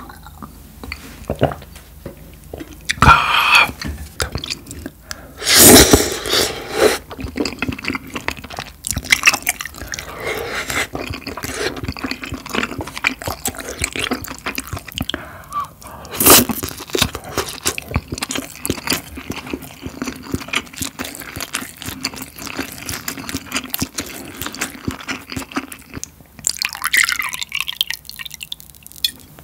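Close-miked eating sounds: wet chewing and slurping of spicy tteokbokki with flat glass noodles and gopchang, with chopstick clicks, just after a shot of soju is downed. Near the end, soju pours from a glass bottle into a shot glass.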